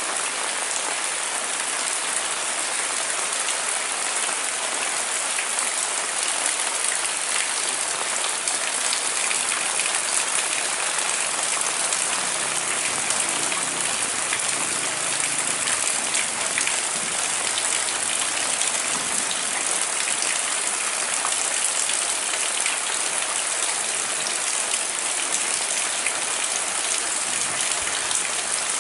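Heavy rain falling steadily, a dense even hiss of drops with fine pattering ticks of individual drops.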